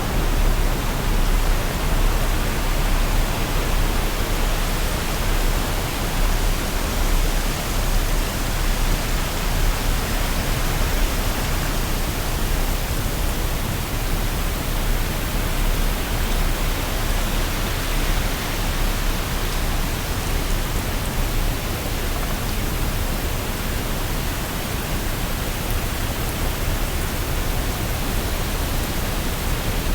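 Waterfall: a steady, unbroken rush of falling water with a deep low rumble underneath.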